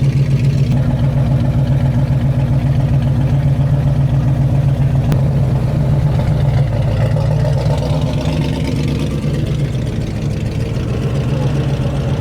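A vehicle engine idling steadily, growing a little quieter near the end.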